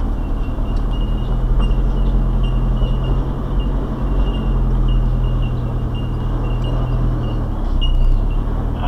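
Four-wheel drive's engine running steadily at low revs as it crawls over a rough dirt track, heard from inside the cab, its pitch dropping slightly near the end.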